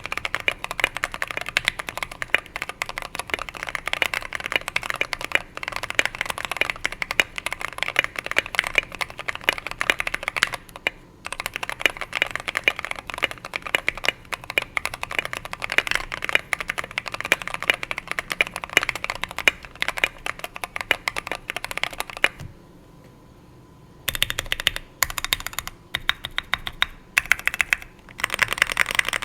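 GK61XS mechanical keyboard with lubed Gateron Brown switches, SA keycaps, plate foam and tape mod being typed on fast and steadily. Typing stops for about two seconds about three-quarters of the way through, then resumes in short bursts.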